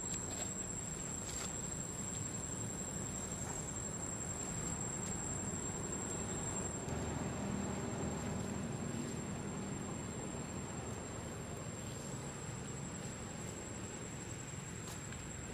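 Outdoor ambience: a high insect drone held steady on one note, over a low background rumble, with a few faint clicks.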